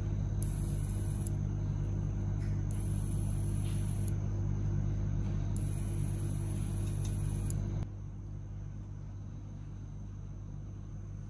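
A steady, loud machine hum with three short bursts of high hiss on top. The hum drops noticeably in level about eight seconds in and carries on more quietly.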